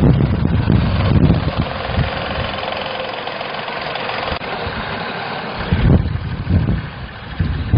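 Engine of a Mechron 2450 utility carrier running, with low thumps and vibration under a steady mechanical noise. About six seconds in, the steady noise drops away and lower, uneven rumbling takes over.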